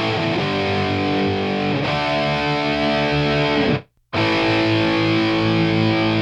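Distorted electric guitar chords ringing out, processed through a Z&H Designs 1178 compressor/limiter. About four seconds in, a chord slides down and cuts off to a brief silence, then a new chord is struck and held.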